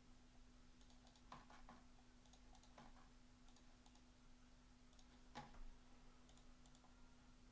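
Near silence: a few faint, scattered computer keyboard clicks over a steady low hum.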